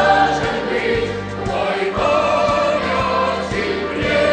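Boys' choir singing a chorus over a backing track with a steady beat.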